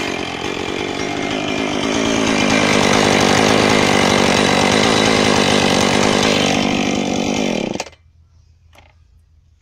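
Husqvarna 445 two-stroke chainsaw engine running steadily without cutting, then stopping abruptly about eight seconds in.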